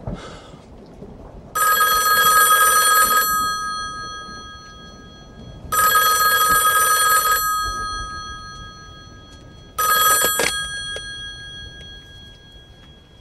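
Push-button desk telephone ringing, three rings about four seconds apart; the third ring is cut short among a few clicks.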